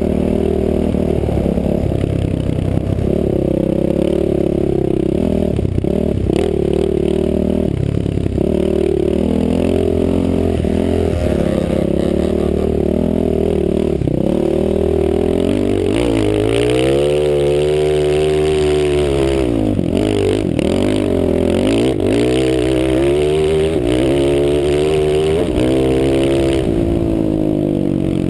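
Off-road vehicle's engine heard from the rider's helmet, pulling through sand with its pitch rising and falling as the throttle changes; past the middle the note drops low and climbs back up twice.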